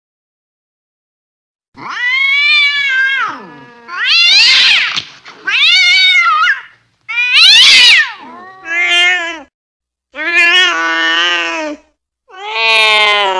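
Angry cat yowling: a string of about seven long, wavering calls, starting about two seconds in, the last still going at the end.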